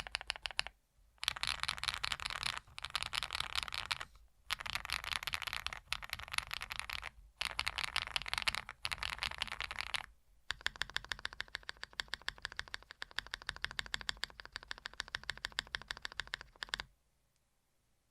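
Fast typing on a custom mechanical keyboard with Cherry-profile PBT keycaps, keys clacking in rapid runs of several seconds each, broken by brief pauses. The typing stops about a second before the end.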